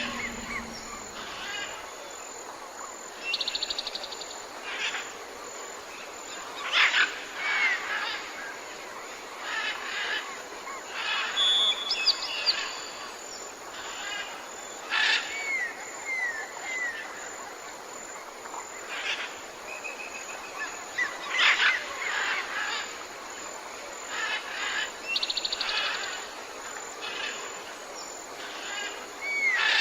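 Several birds calling and singing: short chirps, curving whistled notes and a few quick buzzy trills, scattered through a steady background hiss.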